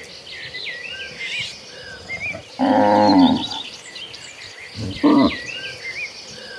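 Cattle mooing: one loud, drawn-out moo about two and a half seconds in and a shorter call about five seconds in, with small birds chirping throughout.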